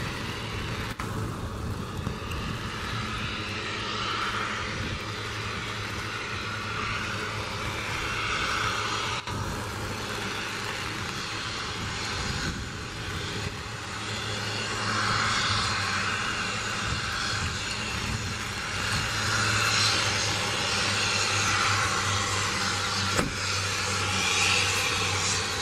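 Twin turboprop engines (Garrett TPE331) of a Fairchild Metro airliner running as it rolls along the runway. A steady low hum sits under a rushing engine noise that swells and fades, growing louder in the second half.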